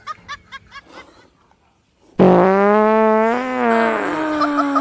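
A long, loud fart sound effect that starts suddenly about two seconds in, with a low pitch that wavers up and down.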